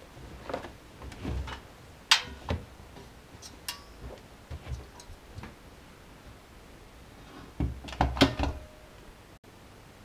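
Porthole door of a Miele Softtronic W 435 front-loading washing machine being handled: scattered knocks and clicks, then a cluster of louder knocks about eight seconds in as the door is pushed shut and latches.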